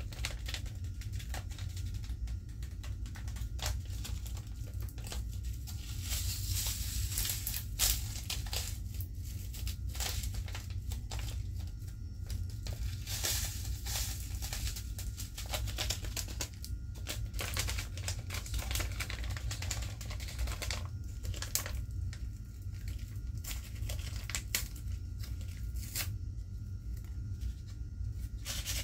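Strawberry Pop Rocks popping candy crackling in a mouth, held close to the microphone: many small, sharp pops at irregular intervals, thickening into a dense crackle in places. A steady low hum runs underneath.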